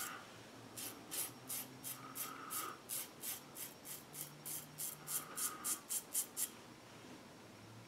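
West Coast Shaving 3D Wrap double-edge safety razor with a Rockwell blade scraping through lathered stubble on the neck in short, quick strokes, about three or four a second and getting faster, stopping near the end.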